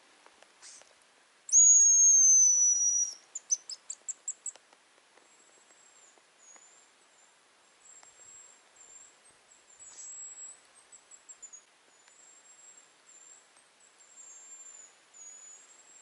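A hazel grouse decoy whistle blown once: a long, high, slightly falling whistle, then a quick run of short high pips. After it, faint thin high whistles come and go: hazel grouse answering the call.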